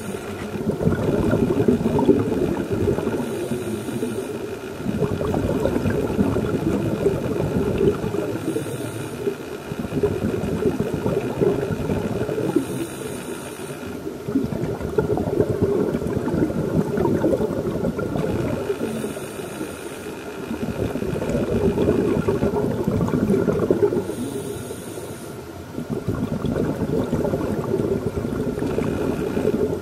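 Diver breathing through a scuba regulator underwater: a short hiss of each inhalation, then a long burble of exhaled bubbles, repeating in a slow cycle about every five seconds.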